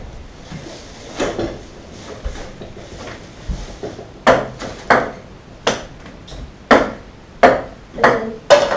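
Ping-pong ball bouncing on a wooden tabletop. There are a few faint knocks, then from about four seconds in a run of sharp, ringing clicks roughly two-thirds of a second apart.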